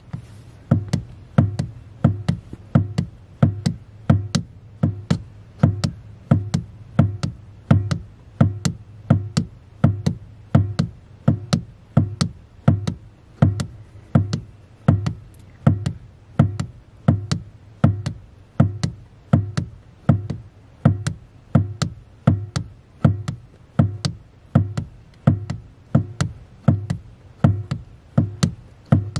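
Background music with a steady electronic beat, about two beats a second, each beat a low thump with a sharp click.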